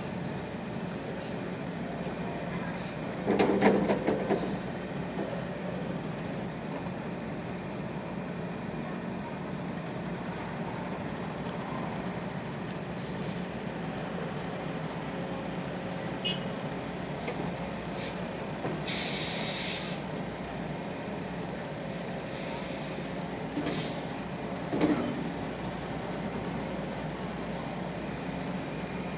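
Excavator's diesel engine running steadily, with a loud metallic clatter about three seconds in, a short hiss a little past halfway, and another smaller clatter near the end.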